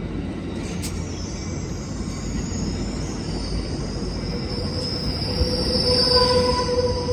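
Amtrak San Joaquin passenger train rolling slowly past as it brakes into its terminal stop, with a steady low rumble and a thin, high-pitched squeal that slides slightly down in pitch. A second, lower squeal tone comes in about six seconds in.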